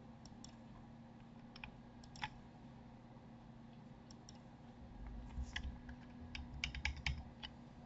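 Scattered clicks of a computer mouse and keyboard, with a quick run of clicks and low thumps about five seconds in.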